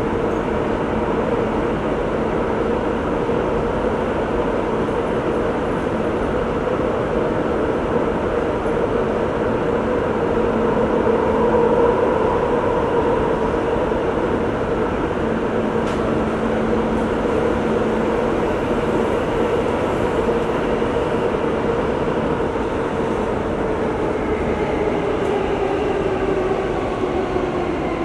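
Singapore Downtown Line MRT train heard from inside the car while running underground: a steady rolling rumble with a whine from the traction motors. Over the last few seconds the whine falls in pitch as the train slows.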